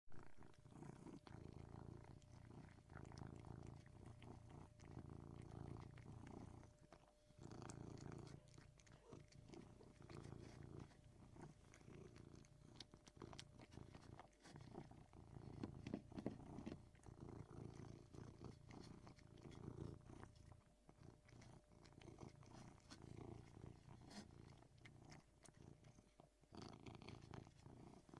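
Persian cat purring steadily close up while it eats, with small clicks of chewing over the purr. The purr drops out briefly a few times.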